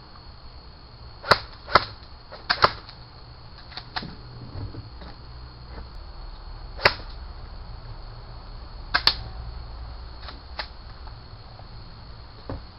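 Airsoft guns firing, a series of sharp pops. About seven loud ones come at irregular times, some in quick pairs, with fainter shots or hits between.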